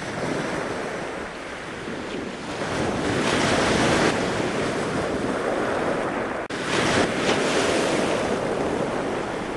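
Ocean surf: a steady rush of breaking waves that swells a few seconds in and breaks off for an instant about six and a half seconds in.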